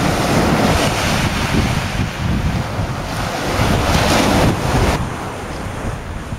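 Sea waves breaking and washing up a shingle beach, with wind buffeting the microphone. The surf swells twice, then drops off sharply about five seconds in.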